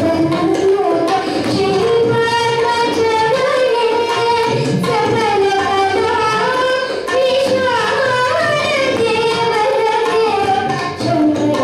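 A seven-year-old boy singing a devotional song in Carnatic style, holding and sliding between ornamented notes, accompanied by tabla.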